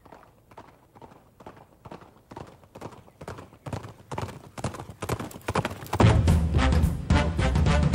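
A horse's hooves clip-clopping in a steady gait, about three or four beats a second, growing steadily louder as it comes nearer. About six seconds in, loud music cuts in over the hoofbeats.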